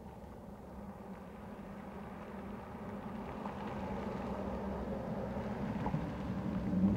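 Chevrolet Silverado pickup truck driving past, engine and tyre noise growing steadily louder as it approaches.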